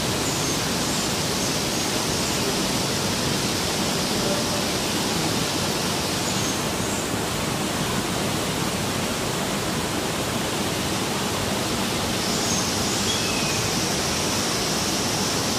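Steady rushing of running water, like a pond's waterfall or fountain, with a few faint high chirps.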